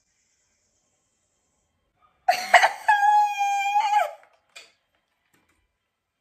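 A woman bursting into loud laughter about two seconds in: a short rough burst, then a high, held squeal of about a second that breaks off.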